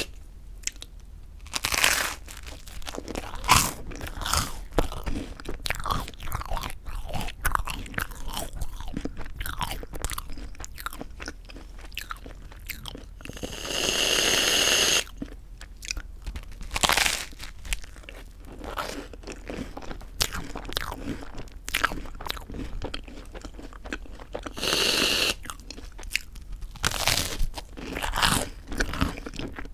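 Close-up crunching and chewing of crispy toasted white bread, with many sharp, irregular crunches. Three longer noisy stretches of about a second each come near the start, about halfway through and near the end.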